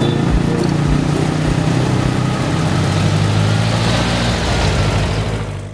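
Engine running steadily inside a classic car's cabin as it drives along, with road and wind noise. The sound cuts off suddenly at the end.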